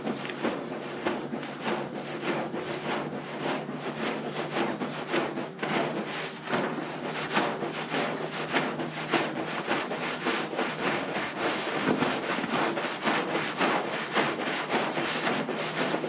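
A stiff-bristled push brush scrubbing a soap-foamed carpet in quick, repeated wet strokes, about two or three a second, over a steady low hum.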